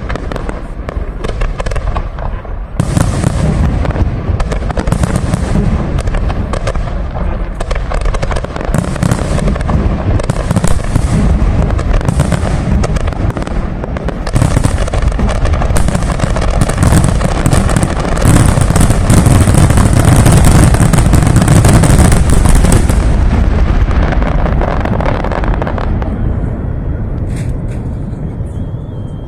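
Fireworks salute: a dense, continuous barrage of booming bursts and crackling, loudest in a thick crackling stretch past the middle, then thinning out and fading away near the end.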